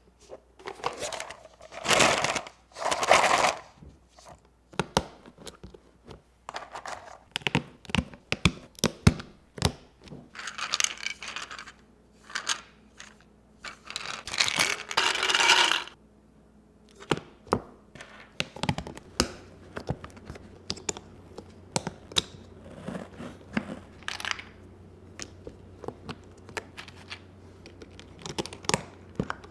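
Custom keyboard parts being handled and put together by hand: an irregular run of small clicks and taps, with several rustling noises lasting a second or two each. A faint low hum comes in about two-thirds of the way through.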